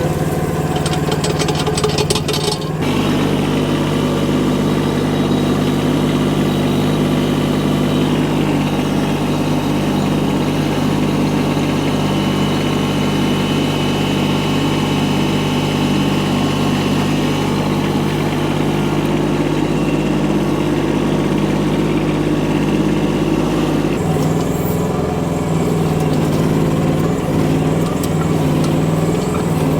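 Micro excavator's small engine running steadily while digging, its note shifting about three seconds in and again near the end as the hydraulic load changes.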